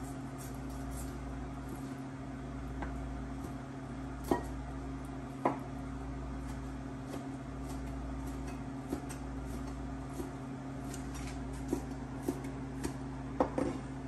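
A knife knocking on a cutting board while slicing a cooked beef rib steak: a handful of sharp, irregular knocks, the loudest about four and five seconds in and a cluster near the end, over a steady low appliance hum.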